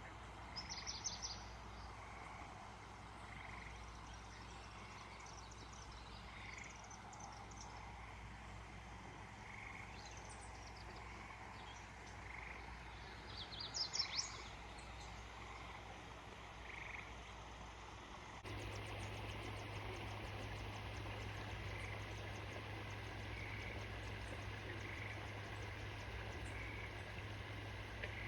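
Frogs calling in a slow, regular series over the steady rush of a backyard waterfall. There are two short bursts of high bird chirps, one near the start and one about halfway. About two-thirds of the way through, the water noise suddenly gets louder.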